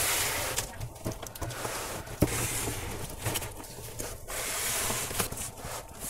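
Cardboard speaker carton being slid and turned over on a tabletop, a rubbing, scraping noise with a few short knocks.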